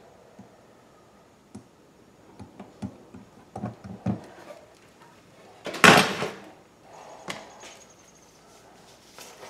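Light taps and scrapes of a plastic welder's hot tip working melted plastic into a plastic fuel tank, a few short knocks close together. About six seconds in comes a single much louder clatter, the loudest sound, followed by a few faint clicks.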